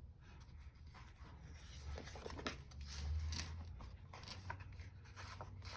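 Stickers being peeled off their sheet and pressed onto paper planner pages, with paper rustling and a scatter of small taps.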